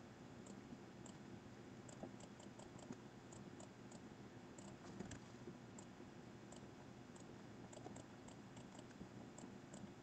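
Faint, sparse clicks of a computer mouse, a few every second or so, over near-silent room tone.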